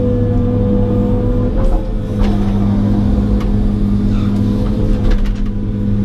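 John Deere 200 excavator's diesel engine and hydraulics running under working load, heard from inside the cab as the bucket digs. The engine note shifts about two seconds in, and a few short knocks come through over the steady drone.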